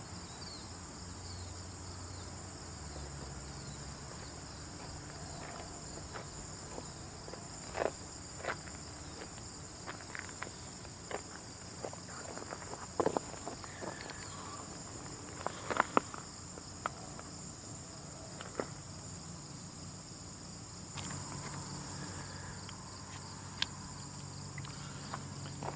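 Steady, high-pitched insect chirring, like crickets, with irregular small clicks and ticks scattered through the middle, a few of them sharp and close.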